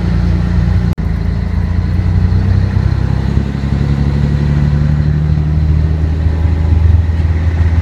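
Scania 113 truck's straight-six diesel engine running steadily under way, heard inside the cab as a loud low drone that shifts slightly in pitch partway through. The sound cuts out for an instant about a second in.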